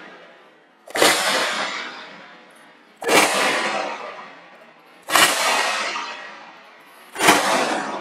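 Four whip cracks about two seconds apart, each a sharp crack with a long fading tail, slowed down along with the picture.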